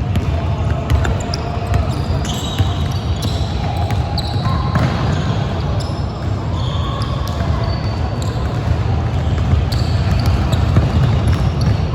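Basketball game in a gymnasium: a ball bouncing on the court amid a steady hall rumble, with many short high squeaks from sneakers on the floor.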